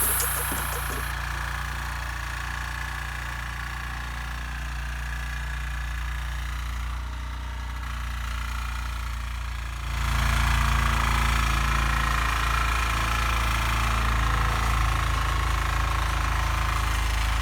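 Rotary cultivator's engine running steadily, getting louder about ten seconds in.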